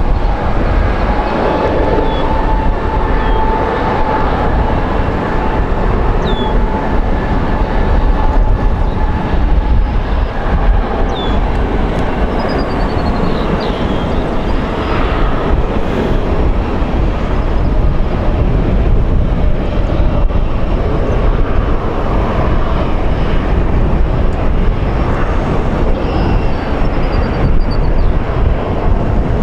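Airbus A220's Pratt & Whitney PW1500G geared turbofans at takeoff power: a loud, steady, deep rumble. Over the first several seconds it carries the engine's well-known howl, a held tone that fades away.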